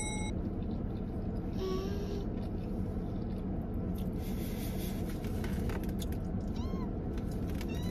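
Steady low rumble inside a car cabin, with a few brief high-pitched squeaks: one about two seconds in and a couple near the end.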